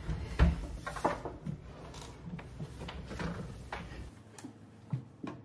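Household handling noises in a small hallway: a door opening and a series of knocks and thumps, the loudest about half a second in, as a big armload of laundry is gathered up and carried.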